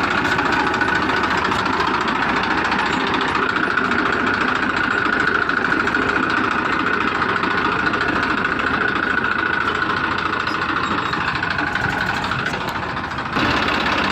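Motorized toy excavator truck running, a steady mechanical buzz from its small motor and gears.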